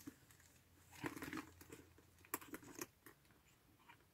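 Faint handling sounds of a purse strap and its clip being fitted: soft rustles and a few light clicks, in small clusters about a second in and again past the two-second mark.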